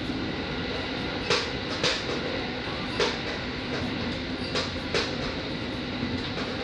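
KiHa 40 diesel railcar running at speed, heard from on board: a steady hum of the engine and running gear, broken by a handful of sharp clicks, some in close pairs about half a second apart, as the wheels cross rail joints.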